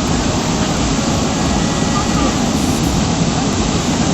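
Steady rushing roar of a waterfall.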